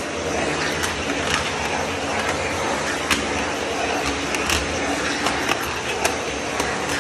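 Vacuum cleaner running steadily while its floor nozzle is pushed and scraped along hard stair treads. The nozzle knocks and clicks against the steps at irregular moments.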